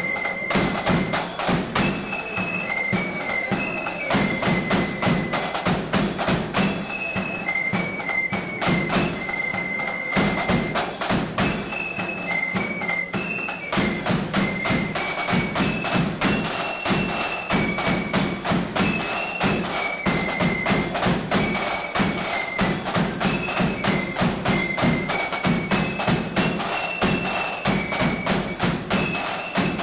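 Marching flute band playing a tune: a high flute melody over rapid snare drumming and a bass drum beat.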